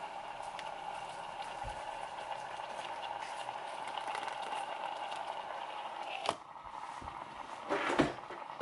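Baby-food purée squeezed out of a plastic pouch into a plastic cup over a steady kitchen hum. A sharp click about six seconds in cuts the hum short, and a short clatter of handled objects follows near the end.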